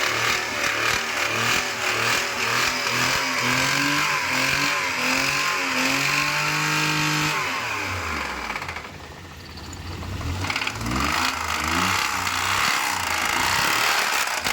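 Maruti Alto petrol engine running and being revved up and down. Its pitch drops sharply about eight seconds in and climbs again about ten seconds in. This is the engine's sound with its first-cylinder connecting-rod bearing worn away and the crankshaft journal worn, damage the mechanic puts down to a clogged oil-pump strainer starving it of oil.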